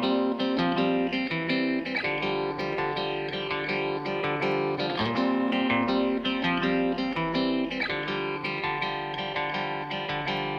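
Background music played on guitar, plucked with a steady pulse.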